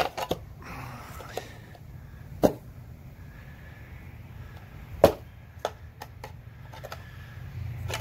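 Metal knocks and clinks from a steel pry tool and tongs striking and working a steel muffin tin to pop a freshly cast aluminum ingot out of it. Three loud knocks come about two and a half seconds apart, with lighter clicks between.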